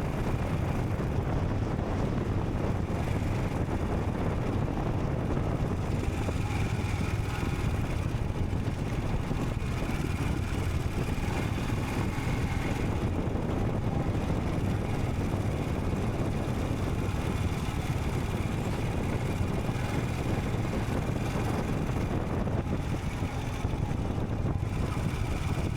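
Royal Enfield Scram 440 motorcycle's single-cylinder engine running steadily at riding speed, with no change in pace.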